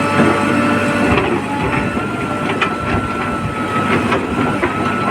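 Backhoe loader working: its diesel engine and hydraulics run with a steady high whine, while scattered clanks and knocks come from the bucket and the mud it digs and dumps.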